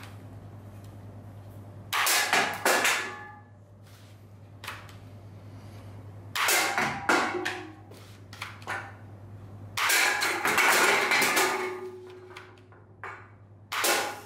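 Aluminium soda cans hit by shots from a cardboard toy rifle, clattering and tumbling onto a wooden tabletop. There are four bursts, each a sharp hit followed by ringing and rattling, the third the longest and the last near the end. A steady low hum runs underneath.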